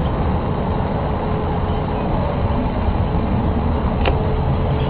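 A steady, low, rumbling roar of unknown origin, with a faint steady hum above it and a single click about four seconds in. It is the unexplained noise that has been going on off and on for hours.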